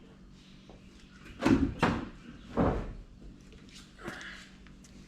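A few dull thumps and knocks, three close together in the first half and a softer one near the end, from the flat spare tire being handled and set down.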